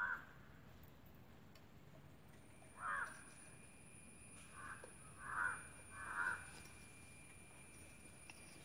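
A crow cawing, five single caws spaced a second or two apart, the last coming a little after six seconds in.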